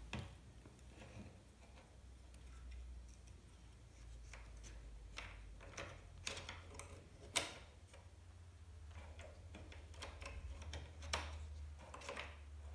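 Faint, scattered clicks and small knocks of plastic parts being handled and fitted at the base of a dishwasher, with a few sharper clicks and a low hum underneath.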